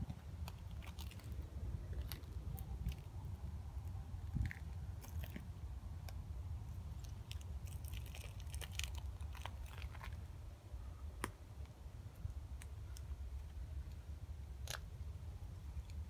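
Footsteps crunching and scraping on broken brick and plaster rubble, with scattered sharp clicks and crackles of debris underfoot, over a steady low rumble.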